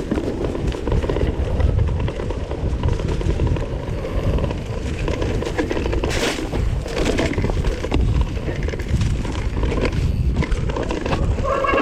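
Vitus mountain bike riding along a trail: a steady low rumble of wind on the microphone and tyres on the ground, with rattles and knocks throughout.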